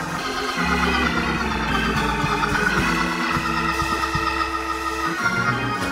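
Organ playing sustained chords over held bass notes, the chords changing every second or so.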